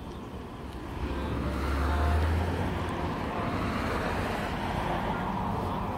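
Road vehicle passing: a rushing sound of engine and tyres that swells about a second in, loudest with a low rumble about two seconds in, then stays steady.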